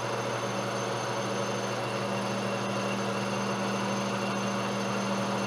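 Monarch model K engine lathe running steadily while turning 1018 mild steel: an even machine hum that holds one constant pitch.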